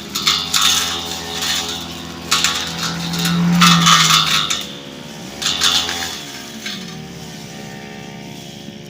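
Brush cutter engine running, its pitch dipping and rising with the throttle, with several sudden bursts of clattering and swishing as the cutting head strikes dense brush.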